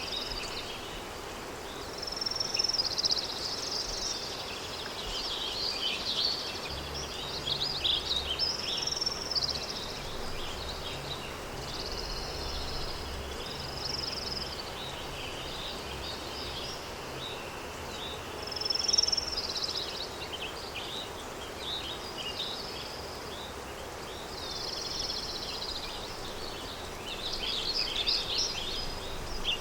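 Countryside ambience: songbirds singing short, repeated phrases every few seconds over a steady background hiss of wind. The birdsong is loudest near the end.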